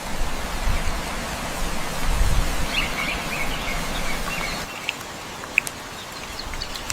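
Outdoor nature ambience: a steady hiss with a quick flurry of small bird chirps about three seconds in and a couple of sharp ticks later.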